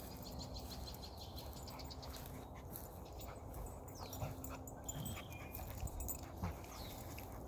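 Two dogs playing, with a few faint, brief dog whimpers.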